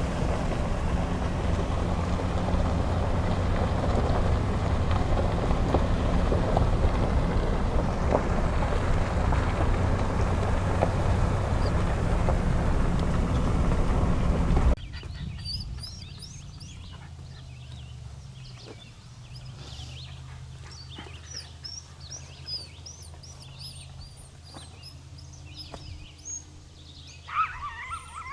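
Steady vehicle rumble with a low engine hum, which cuts off abruptly about halfway through; then many small birds chirping and singing, with one louder call near the end.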